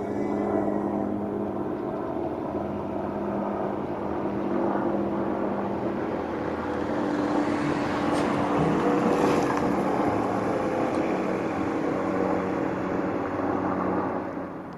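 A large engine running steadily with a low, even hum, falling away just before the end.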